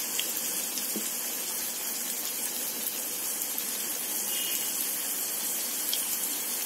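Hot oil sizzling steadily as a batch of vegetable Manchurian balls deep-fries in a wok-style pan.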